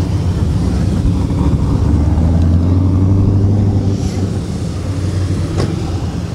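A vehicle engine running at a steady idle with no revving. It eases off slightly about four seconds in, and a single sharp click sounds about five and a half seconds in.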